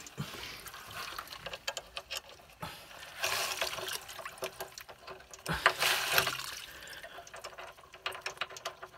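Water splashing and running out of the open element port of an electric water heater whose tank was not drained, with scattered metal clicks from the element being handled. It swells louder twice, about three and six seconds in.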